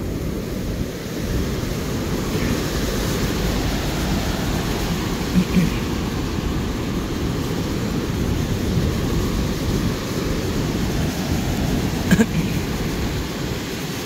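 Rough surf breaking and washing up onto a shallow sandy beach, a steady rush of waves with wind rumbling on the microphone. Two brief bumps, about five and twelve seconds in.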